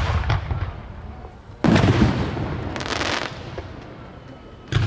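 Fireworks aerial shells bursting: a loud boom about one and a half seconds in that rumbles away over the next second or so, and another boom near the end.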